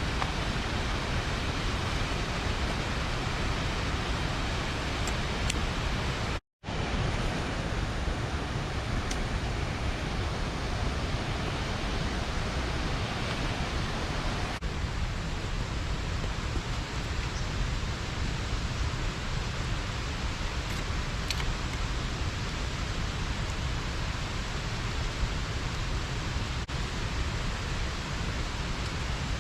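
Steady rushing of a small river's water pouring over a low dam, broken by a split-second dropout about six seconds in.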